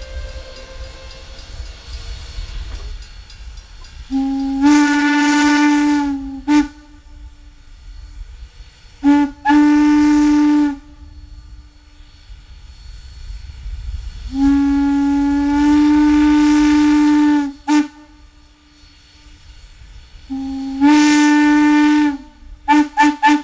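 Norfolk & Western 475, a 4-8-0 steam locomotive, blowing its steam whistle over the low rumble of the running train. The whistle sounds a pattern of long blasts and short toots, each long blast sliding up slightly in pitch as it opens, and ends with a quick run of short toots.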